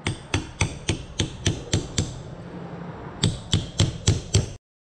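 A hammer tapping a socket used as a seal driver, driving a lip oil seal into the bore of a Peerless 1050 right-angle gearbox housing. The metallic strikes ring and come about three or four a second, with a pause of about a second midway, then a second run. The sound ends abruptly near the end.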